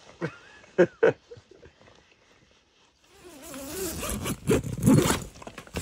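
Two sharp knocks about a second in, a wavering yawn-like groan around three seconds, then a tent door zipper being pulled open in quick rasping strokes over a rising hiss near the end.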